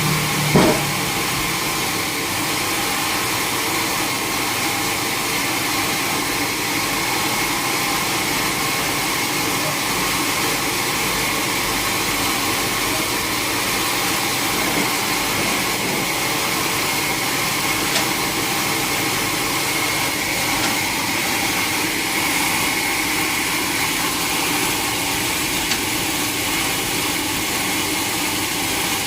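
Sawmill machinery running steadily: a constant mechanical drone with a high whine, and a short sharp knock about half a second in.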